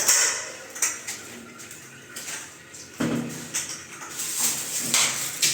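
Metal plumbing fittings clinking, knocking and scraping as they are handled, with a few short scraping or rustling passages.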